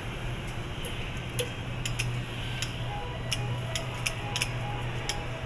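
Factory ambience: a steady low machine hum with irregular sharp clicks and ticks, about ten scattered through the few seconds.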